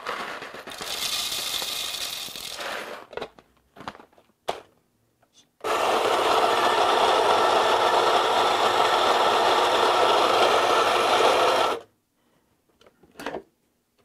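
Whole coffee beans poured into the plastic hopper of a Baratza Vario+ grinder, rattling for the first few seconds, then a few clicks. The grinder then runs for about six seconds, its 54 mm flat burrs grinding the beans coarse for French press, and stops abruptly; a single click comes near the end.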